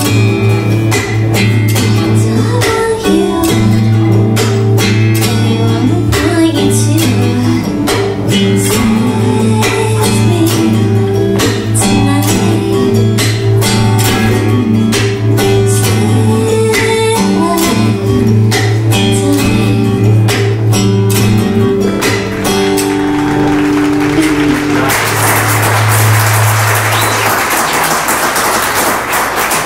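Steel-string acoustic guitar played live, strummed and picked to the end of a song. Near the end the last chord rings on while applause breaks out.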